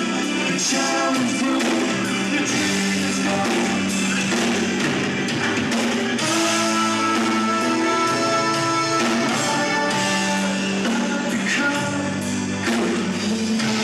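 A live rock band playing, with guitar and singing.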